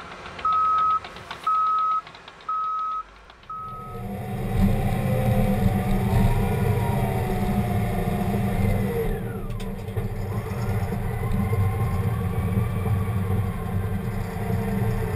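A backup alarm on snow-clearing equipment beeping about once a second, five beeps, then about four seconds in a crawler bulldozer's engine running under load, heard from inside its cab, with a few wavering squeals over the rumble.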